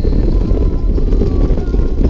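Wind noise buffeting the microphone of a motorcycle at highway speed, with the bike's engine running underneath as a steady low rumble.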